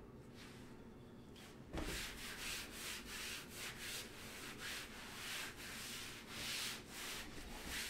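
Hands rubbing back and forth over the Arozzi Arena desk's fabric mouse-pad mat, a soft repeated swishing at about two strokes a second. It starts with a light knock about two seconds in.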